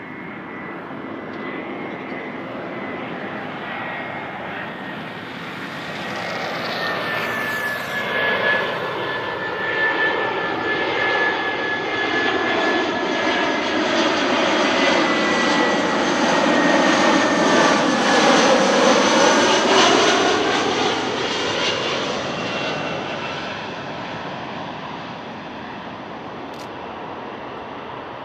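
Airbus A320-200 jet airliner on its landing approach passing the listener. The jet engine noise swells to a peak about two-thirds of the way through, then fades. A thin whine sits on top of the engine noise and sinks slightly in pitch as the aircraft goes by.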